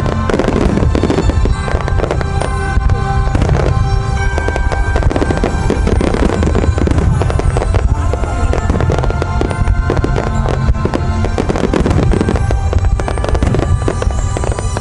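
Large fireworks display with many shells bursting and crackling in quick, overlapping succession, with music playing underneath.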